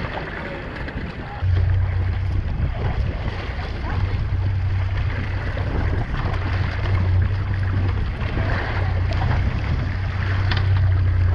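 Boat running on the sea: a steady low engine drone comes in about a second and a half in, over wind buffeting the microphone and water rushing along the hull.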